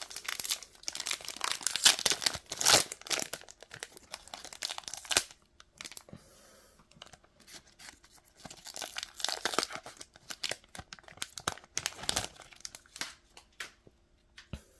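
Foil wrapper of a Select AFL Footy Stars hobby card pack being torn open and crinkled, in two bouts of ripping and rustling with a short lull between them.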